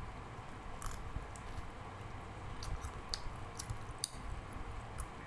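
A person chewing a mouthful of food eaten by hand, with scattered wet mouth clicks over a low rumble.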